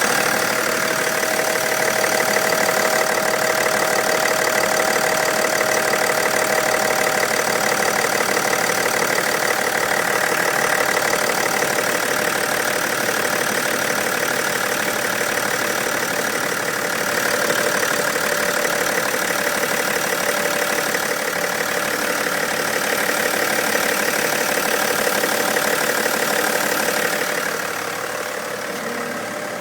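BMW X5 engine running at idle with a steady whistle over the engine noise: the whistle is the fault being recorded. The sound drops in level shortly before the end.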